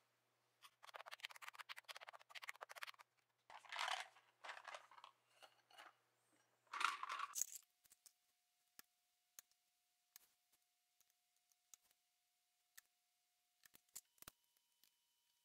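Clattering and rattling of a plastic Royal Kludge RK98 barebone keyboard case being handled and turned over, in bursts through the first half. After that come scattered single light clicks of hands working on the keyboard parts.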